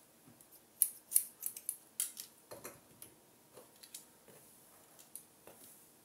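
Hairdressing scissors snipping through a lifted section of hair: a quick run of sharp snips starting about a second in, followed by a looser series of softer cuts.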